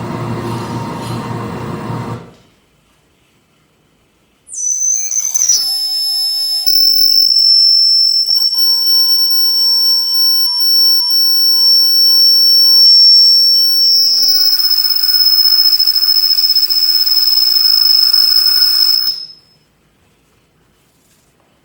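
A loud, piercing high-pitched whistling tone, part of an experimental sound performance. It enters with a brief downward glide, holds steady for about fifteen seconds, and cuts off abruptly. Before it, a couple of seconds of noisy rumble stop suddenly, leaving a short silence.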